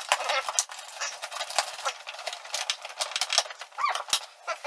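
Quick clicks, taps and rustling of plastic and cardboard packaging being handled as a large Transformer toy is unpacked, with a short chirp-like voice-like sound about four seconds in.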